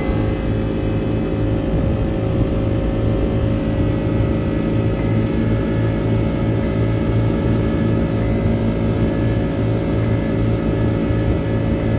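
A vehicle engine running steadily at a constant pace, with a low pulsing drone under a steady whine.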